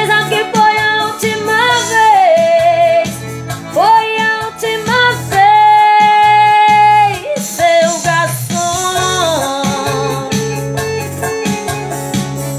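A woman singing a song over an instrumental backing track with keyboard, sliding between notes and holding one long note about halfway through.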